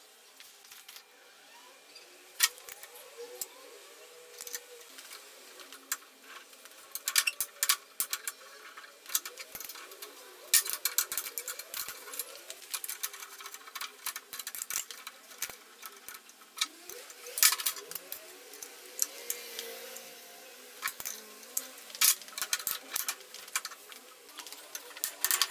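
Scattered sharp metallic clicks and clanks from a manual tube bender and a steel tube as they are handled and the bend is pulled, coming in irregular clusters.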